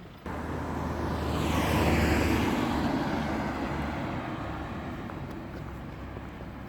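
A motor vehicle passing by: its noise rises to a peak about two seconds in, with a falling sweep in pitch, then slowly fades.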